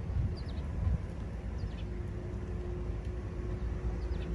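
Outdoor ambience: a steady low rumble, with a faint even hum joining about two seconds in, and a few short high bird chirps.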